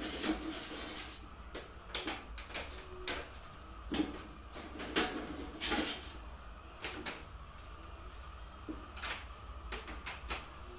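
Irregular short knocks and rustles, about a dozen in ten seconds, with a few brief low calls: hens moving and pecking in a poultry house, over a steady low hum.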